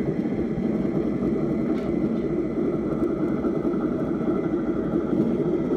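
Beier sound module in an RC tug model playing a ship's diesel engine at a steady idle through the model's loudspeaker.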